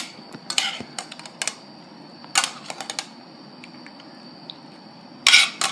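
Metal utensil scraping and clinking against a skillet as sauce is scooped out onto a plate: irregular clicks and scrapes, a handful in the first three seconds and a louder cluster near the end, over a faint steady high hum.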